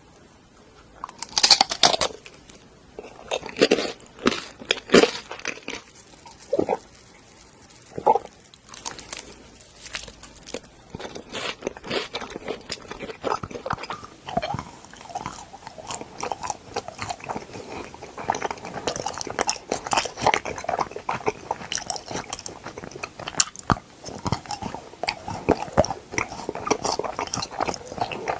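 Close-miked eating: a series of separate crisp bites and crunches, then from about halfway through a denser, continuous run of mouth-chewing noises.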